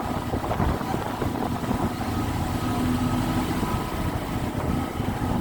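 A boat's engine running steadily under way, a constant drone over low rumble and wash.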